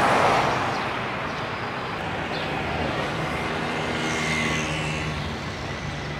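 Street traffic: a vehicle passes close at the start and its noise fades, then another vehicle's engine runs with a steady low note.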